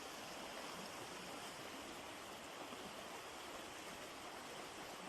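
Steady, even rushing noise of typhoon weather, fairly faint and without distinct events.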